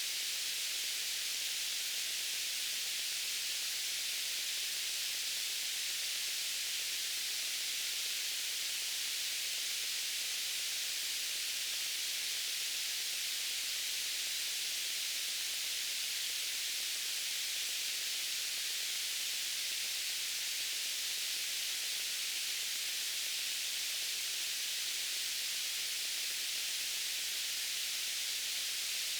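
Steady white noise: a constant, even hiss, bright and high, with little low end and no changes.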